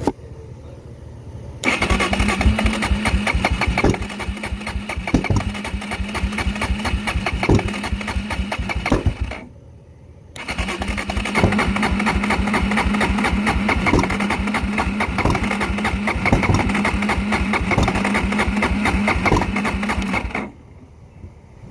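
Kawasaki KFX400 ATV being cranked on its starter in two long attempts of about eight and ten seconds, with a short pause between. There is a steady starter whine and rapid, even cranking pulses, and the engine turns over without catching. It is a no-start after a new cylinder and piston, despite good compression and checked timing.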